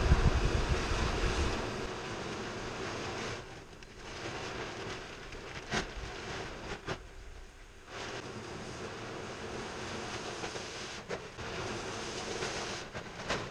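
Large white plastic sheet being pulled out and spread over a concrete floor: a rustling, dragging whoosh that comes and goes, with a low rumble in the first second or so and a few sharp crinkles.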